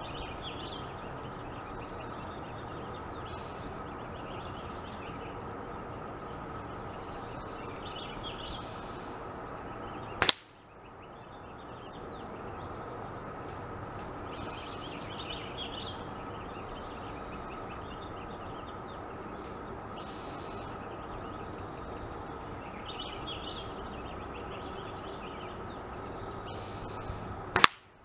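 Two sharp single cracks from a .177 pellet air rifle being fired at the fruit targets, one about ten seconds in and one near the end.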